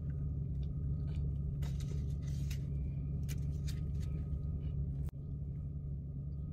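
Steady low hum inside a parked car's cabin with the engine running, with a few faint clicks and one sharper click about five seconds in.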